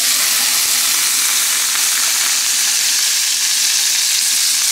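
Salmon fillets frying in butter in a pan, a loud, steady sizzle.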